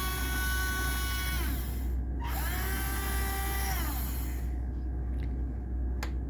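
Small electric turret-traverse gear motor of a 1/16 RC M24 Chaffee tank whining as it turns the turret, winding down about a second and a half in, starting up again a moment later in the other direction, and winding down again about four seconds in. A couple of sharp clicks follow near the end over a steady low hum.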